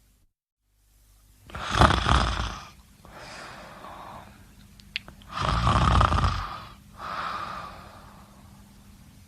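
A person snoring: two loud rumbling snores, the first about a second and a half in and the second about four seconds later, each followed by a softer, breathy sound. There is a brief click just before the second snore.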